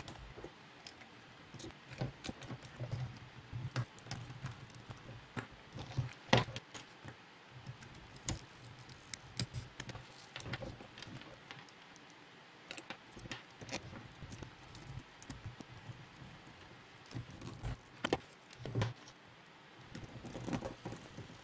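Irregular clicks, taps and light rattles of plastic robot parts and small screws being handled, with a small screwdriver working screws into the hexapod's leg and body frame.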